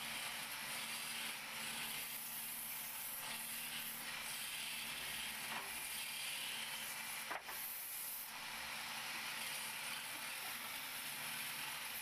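Wood lathe running with a turning tool cutting a spinning wooden spindle: a steady hiss of shavings over the low hum of the lathe motor, with a short break in the cut about seven seconds in.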